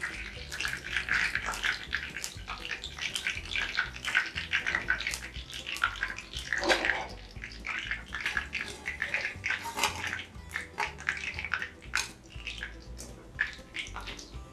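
Masala-coated catfish pieces sizzling and crackling in hot frying oil, with dense, irregular pops. The pieces are being lifted out of the oil in a wire strainer.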